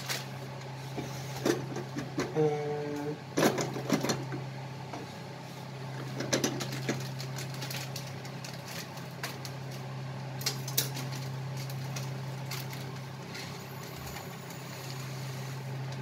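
Dry rice being scooped from its bag and poured into a drinking glass to fill it to the brim, heard as short rattles and rustles every few seconds. A steady low hum runs underneath.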